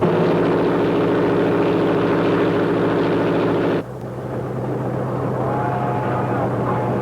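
Locomotive engine running steadily with a deep, even hum. A louder, rougher upper layer cuts off abruptly about four seconds in, leaving the lower running note, with a few short higher tones near the end.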